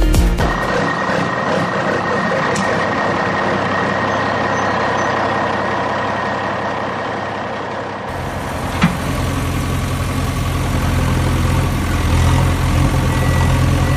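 Heavy truck engine running steadily. About eight seconds in it gives way to a deeper, louder engine idle, with a single knock shortly after.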